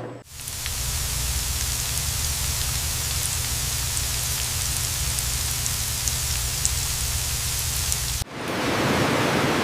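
Steady machine noise on a food production line: an even hiss over a low hum, with a few faint ticks. About eight seconds in it cuts abruptly to a louder, rougher hiss.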